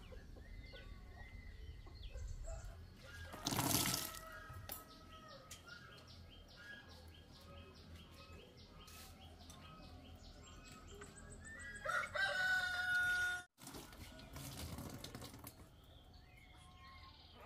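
A rooster crows once about twelve seconds in: a call of about a second and a half, held on one note, that ends abruptly. Chickens cluck around it, and there is a brief loud rustle about four seconds in.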